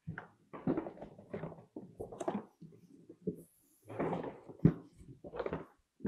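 Stiff plastic hull panels of a folding kayak being folded over and pressed down on a table: an irregular run of flexing, scraping and knocking handling noises, with a sharper thump about two-thirds of the way in.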